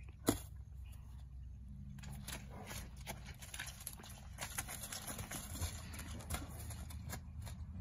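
Two horses playing in a grassy pasture, their hooves striking, stamping and scuffing on soft turf. There is a sharp knock just after the start, then a busy run of quick thuds and scuffs from about two seconds in.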